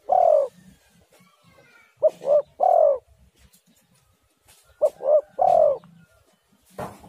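Spotted dove (tekukur) cooing its three-note call, two short notes and a longer falling third, repeated about every two and a half seconds. A brief knock sounds near the end.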